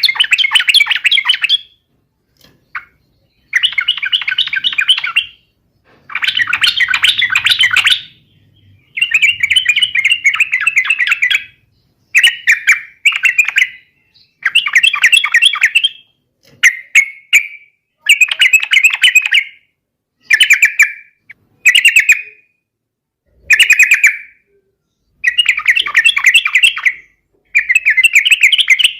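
Yellow-vented bulbul (trucukan) singing loud, rapid chattering phrases of one to two seconds each, repeated over and over with short pauses between them.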